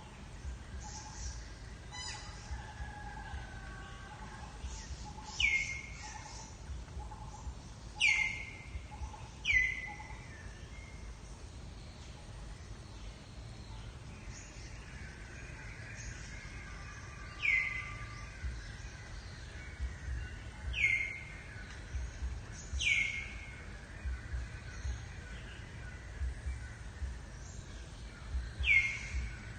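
A bird calling with a short, sharp chirp that sweeps down in pitch, repeated about seven times at irregular intervals of one to several seconds, over steady outdoor background noise.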